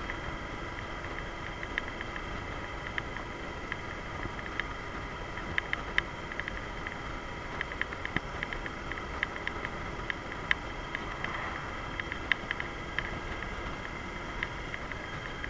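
Yamaha DragStar Classic's air-cooled V-twin engine running steadily while the motorcycle cruises, under a steady rushing noise. Irregular sharp clicks come throughout, thickest around the middle.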